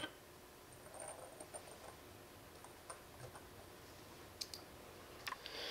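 Faint clicks and light taps of a machined aluminium motor adapter plate being slipped over the shaft and seated onto a large brushless RC motor, with one sharper click at the start and a few scattered ticks after it.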